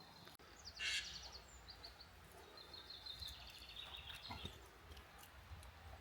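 Faint songbird trills in the woods: quick runs of short high notes about two and three seconds in, over a low steady rumble, with a brief rustle about a second in.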